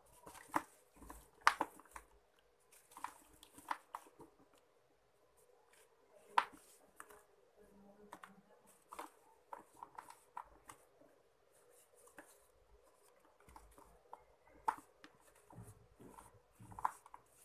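Pieces of soft sand-cement snapping and crumbling between the fingers into a tub of water: irregular crisp crunches and cracks, some sharper than others, with quiet gritty rustling between them.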